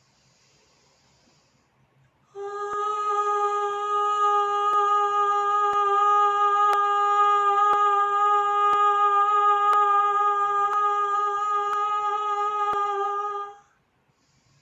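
A woman's voice toning: one steady sung note held for about eleven seconds, starting a couple of seconds in and stopping sharply near the end, used as a sound to release fear.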